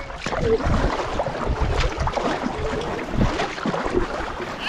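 Canoe paddles splashing and water washing along the hulls of two canoes paddled hard side by side, in irregular strokes, with wind buffeting the microphone.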